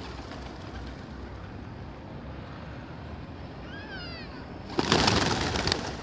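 Feral pigeons suddenly taking off, a loud flurry of flapping wings lasting about a second, near the end; just before it, a brief run of high chirps.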